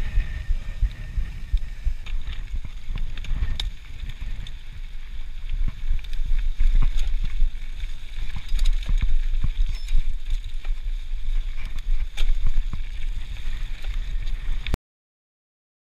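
Mountain bike ridden fast over a dirt singletrack: tyres rumbling over dirt and leaf litter, wind noise on the microphone, and frequent sharp rattles and clicks from the bike over bumps. The sound cuts out completely for about a second near the end.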